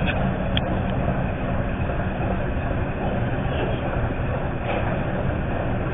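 Eight-cylinder Gardner diesel engine of a British Rail Class 03 shunter running steadily as the locomotive creeps along, with a few light knocks.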